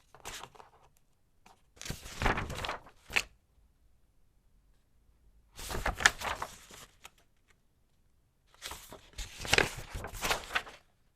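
Thick paper pages being flipped in a file case: three separate rustling page turns, each about a second long and a few seconds apart, with a softer rustle at the very start.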